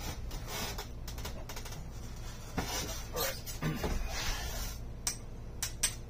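Rummaging and handling of small hard objects: scattered clicks, taps and light clinks with some rustling, including a quick cluster of sharp clicks near the end.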